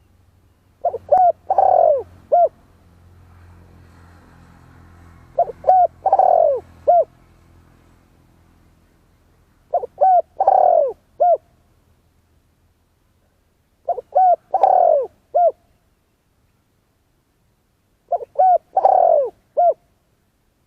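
Spotted dove cooing: a phrase of two short coos, a long falling coo and a short final coo, repeated five times about every four seconds.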